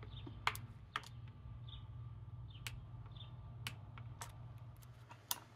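A handful of sharp, irregularly spaced clicks from a ratcheting torque wrench tightening small oil pump housing bolts to 8 Nm. A faint steady low hum runs underneath.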